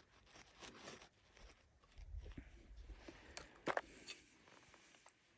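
Faint handling noises: quiet rustling and scattered small clicks, with a low rumble a couple of seconds in and one sharper click about three and a half seconds in.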